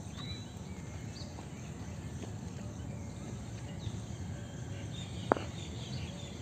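Outdoor ambience with faint, scattered bird chirps, and one sharp knock about five seconds in.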